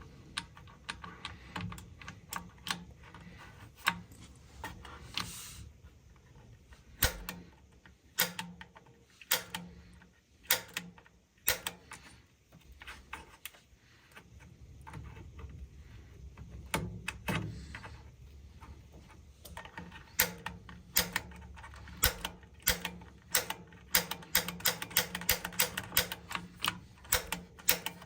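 Piezo igniter on a Rheem gas water heater clicking as its button is pressed over and over to light the pilot, the pilot not yet catching. The clicks come slowly and unevenly at first, then quickly, about two or three a second, near the end.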